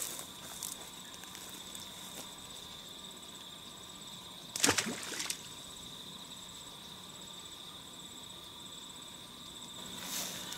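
Insects trilling steadily in a high, fine pulsing tone, with one short, louder noise a little under halfway through.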